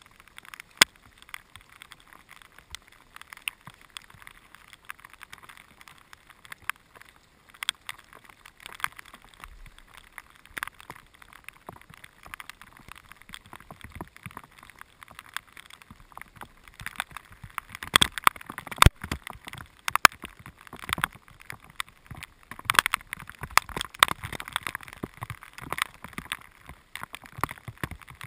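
Raindrops striking the camera close to its microphone: a dense run of irregular sharp taps that grows heavier and louder about two thirds of the way in.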